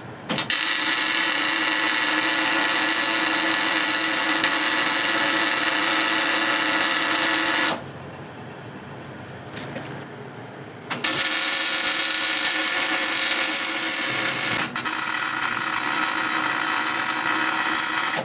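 MIG welder arcing as the spider gears of a Chevy 10-bolt differential are welded to the carrier to lock it into a spool. It makes a steady crackle in two long runs of about seven seconds each, with a pause of about three seconds between them.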